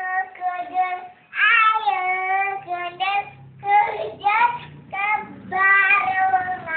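A young child singing in a high voice: long held notes that slide up and down, sung in short phrases with brief breaks between them.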